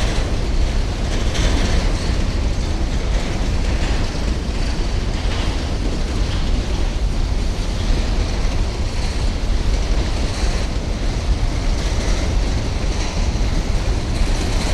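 Train rolling past: a steady rumble of wagon wheels on the rails, with faint clacks every second or two.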